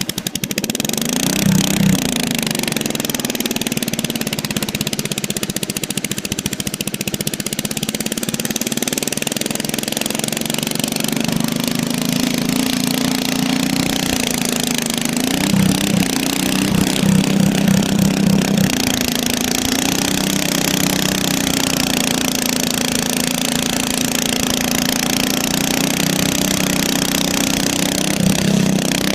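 Riding lawnmower engine running steadily, growing louder for a few seconds about two seconds in, again around the middle and near the end.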